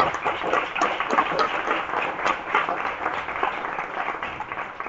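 An audience applauding, many hands clapping together, which fades out just after the end.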